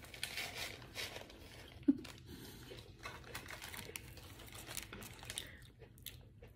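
McDonald's paper sandwich wrapper crinkling and rustling as food is picked off it, with close-up chewing in between: a scatter of short crackles and one sharper snap about two seconds in.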